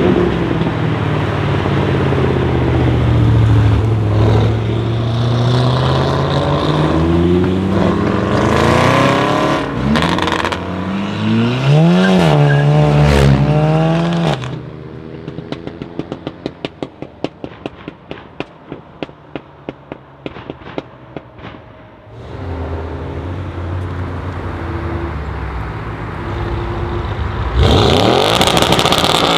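Audi RS6 C7's twin-turbo V8 through a decatted Milltek exhaust, revving and accelerating with pitch rising and falling. Midway it drops quieter into a long run of sharp, irregular exhaust pops and crackles, then runs steadily, and it comes in loud again with another acceleration near the end.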